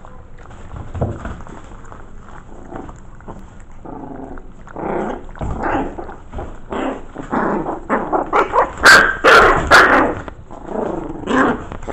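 Five-week-old Maltese-mix puppies barking and yipping, a fast run of short barks starting about four seconds in and loudest near the end.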